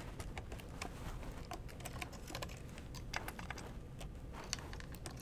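Light, irregular clicks and taps of power wires and their insulated crimp connectors being handled and pushed onto the terminals of a toggle switch set in a clear acrylic frame.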